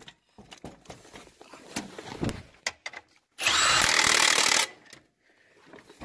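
Milwaukee cordless impact wrench with a 21 mm socket running a brake caliper bolt in: one burst of about a second, a little past halfway, that stops abruptly. Before it come light clicks and knocks of metal.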